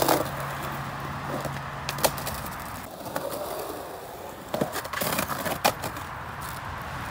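Skateboard wheels rolling on rough concrete, with sharp clacks of the board and trucks striking the ground right at the start and about two seconds in. A cluster of knocks and scrapes follows between about four and a half and six seconds in, as the board hits and rides the concrete lip of a small bowl.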